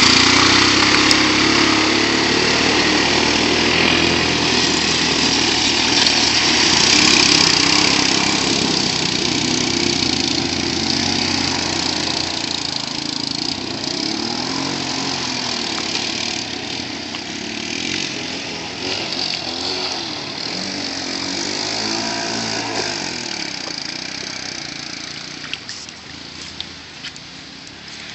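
ATV engine revving, its pitch rising and falling, with water splashing loudly in the first several seconds as the quad drives through a flooded trail. The engine noise then slowly fades as the quads ride off.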